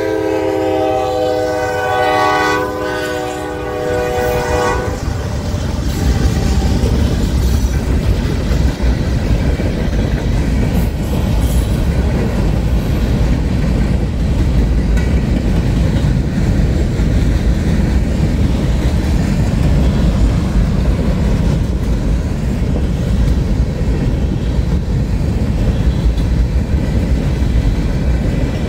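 A CSX freight locomotive's multi-tone air horn sounds a chord and cuts off about five seconds in. A long freight train of covered hopper cars then rolls past close by: a steady rumble with the clickety-clack of wheels over the rail joints.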